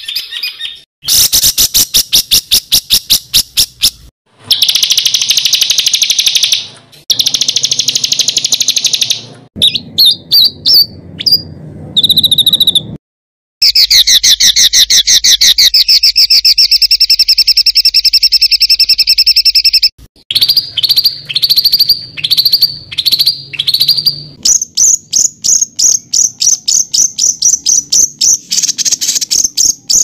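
A songbird's harsh, fast rolling trills and rapid chattering notes, loud. The segments are spliced together with abrupt cuts and short silent gaps.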